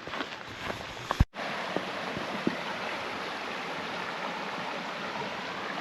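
A few light ticks and a sharp knock, then an abrupt cut about a second in to the steady rush of flowing stream water.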